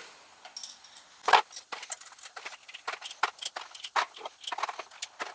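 Small metal hardware (head-stud nuts and washers) and cardboard being handled: scattered light clicks and clinks, one sharper knock about a second in.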